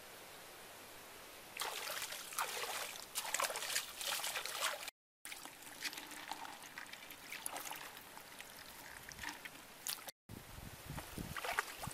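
Water splashing and trickling in uneven bursts as a mesh net trap is handled in shallow water, with lighter scraping and clicking after a brief dropout in the sound about five seconds in.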